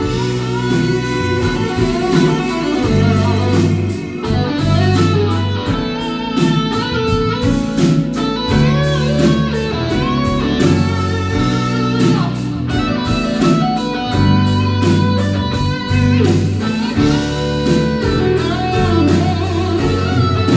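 Live band playing an instrumental passage, with guitar to the fore over bass guitar, drums with a steady cymbal beat, and keyboards.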